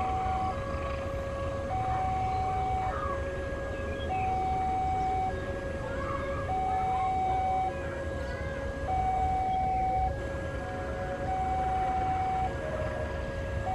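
Electronic level-crossing warning alarm sounding, two tones alternating high and low, each held about a second and a quarter, warning that a train is approaching.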